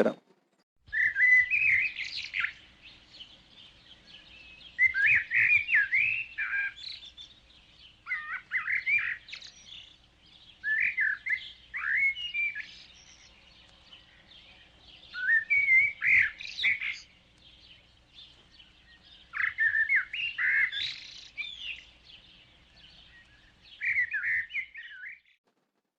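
A songbird singing short, quick warbling phrases, seven of them, each a second or two long with a couple of seconds' pause between.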